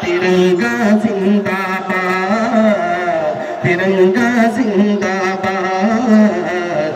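A man singing an Urdu nazm in a chanting style, with long held notes that waver in pitch.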